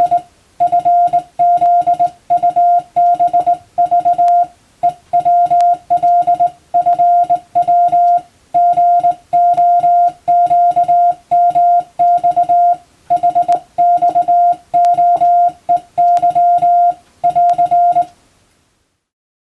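Morse code (CW) keyed by hand on a telegraph key: one steady beep tone switched on and off in dots and dashes, in groups with short pauses between them. The sending stops near the end.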